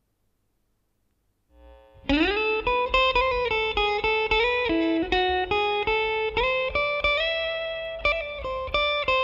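Electric guitar playing a phrase of plucked, ringing notes, starting about two seconds in after near silence. This is the recording after de-hum processing, which has taken out the amplifier's mains line hum.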